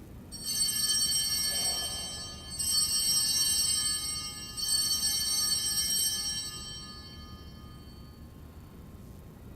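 Altar bells rung three times at the elevation of the chalice after the consecration, each ring a bright, high jangle that dies away, the last fading out about seven seconds in.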